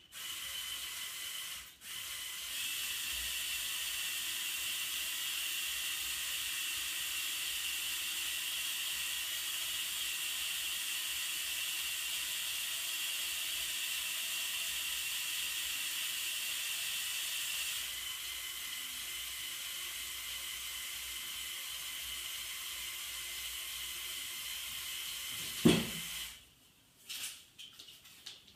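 Small electric motors and gearing of a motorized brick-built model mobile crane whirring steadily as the telescopic boom retracts, a little quieter after about two-thirds of the way. The run ends with a single sharp knock near the end, the loudest sound.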